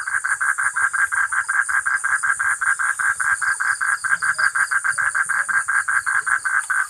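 A frog calling close by: a loud, rapid, steady string of pulses, about seven a second, with insects trilling high behind it.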